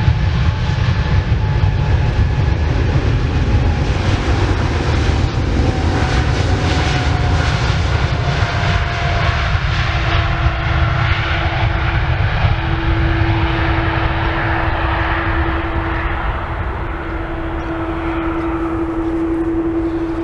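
Boeing 747-8 freighter's four GEnx jet engines at takeoff thrust during the takeoff roll: a loud, steady jet rumble with a whine that slowly drops in pitch as the aircraft passes. A steady hum comes in about halfway through, and the high end fades as the jet moves away down the runway near the end.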